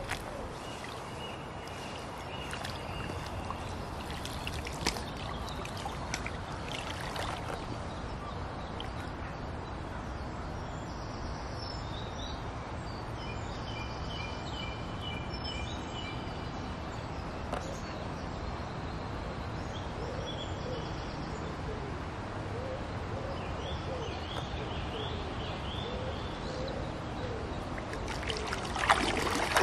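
Lake water lapping and trickling around a large carp held in the shallows for release, with faint birdsong. Near the end the carp kicks its tail and splashes away in a short loud burst.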